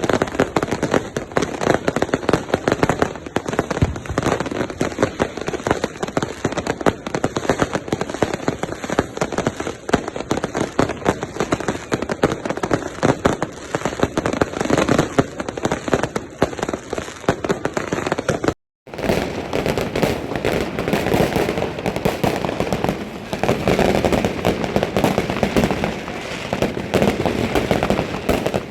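Fireworks and firecrackers going off in a dense, continuous barrage of rapid bangs and crackles, broken by a brief gap about two-thirds in.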